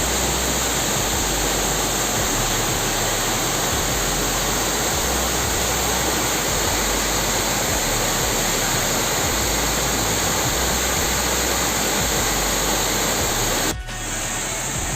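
Waterfall's falling water, a steady rush. It breaks off abruptly near the end and then carries on slightly quieter.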